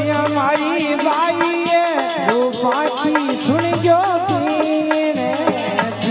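Devotional bhajan music: a melodic lead that glides and wavers in pitch over steady lower notes, with a steady run of percussion strikes.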